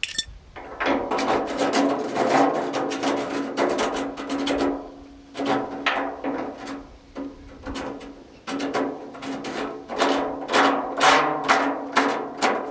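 Background music with sustained tones and a percussive beat of repeated sharp strikes.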